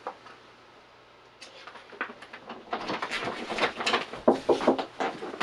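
Handling noise: a quiet start, then from about two and a half seconds in a busy run of clicks, knocks and rustles.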